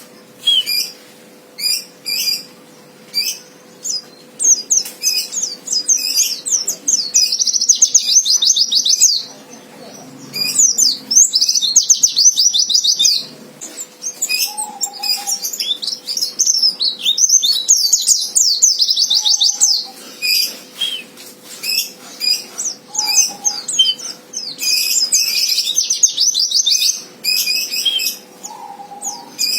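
White-eye (pleci) singing in repeated bursts of rapid, high trilling, each a few seconds long, with short sharp chirps between: the agitated 'fighter' song used to provoke rival males into singing.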